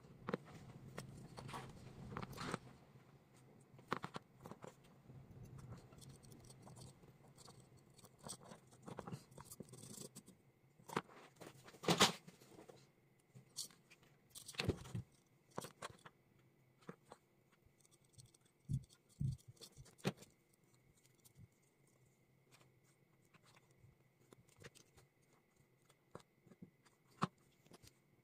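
Small PVC pipe parts, caps and wires being handled and fitted by hand: scattered light clicks, taps and scrapes, with a sharper knock about twelve seconds in.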